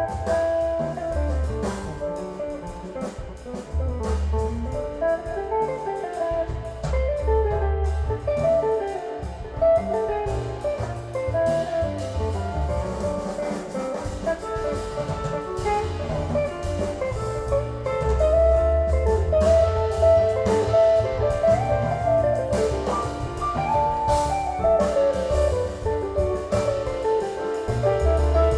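Instrumental music with drums, bass and a melody line, played back through a Tsakiridis Aeolos valve (tube) amplifier and Qualio IQ loudspeakers, as a listening test of its power tubes.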